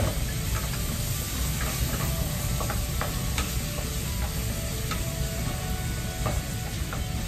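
Garlic frying in hot oil in a wok, sizzling steadily while a wooden spatula stirs it, with scattered light taps and scrapes of the spatula against the pan.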